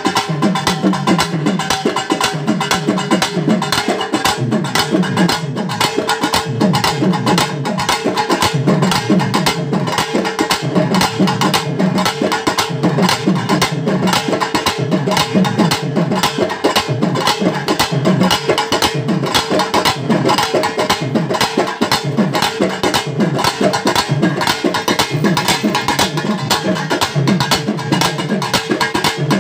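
Pambai, a pair of cylindrical Tamil folk drums struck with sticks, played without pause in a fast, dense rhythm, with deep beats pulsing under rapid sharp strokes.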